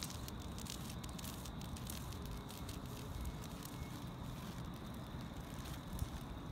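Outdoor walking noise: a steady low rumble on the microphone with scattered faint crackles and scuffs of footsteps on a paved path.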